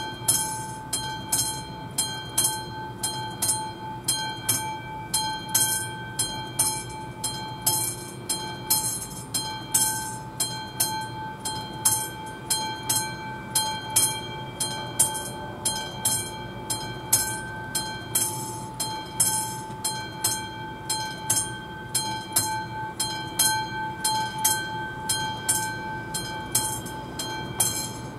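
Classic electromechanical bell of an AŽD 71 level-crossing warning signal, ringing with evenly spaced strokes about two a second, each leaving a ringing tone. It is the crossing's warning that a train is approaching.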